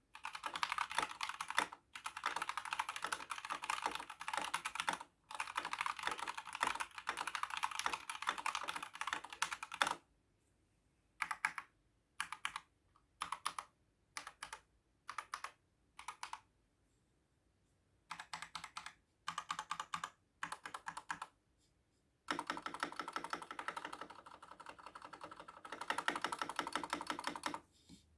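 Typing on an Epomaker GK96S mechanical keyboard, stock and unmodified, with linear Gateron Yellow switches and ABS keycaps: a fast, continuous run of key clacks for about ten seconds, then short separate bursts of keystrokes with pauses between, then fast continuous typing again near the end.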